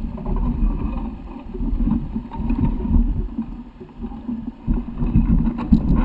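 Mountain bike ridden over rough, rocky trail ground, heard as an uneven low rumble with scattered knocks through the handlebar-mounted camera.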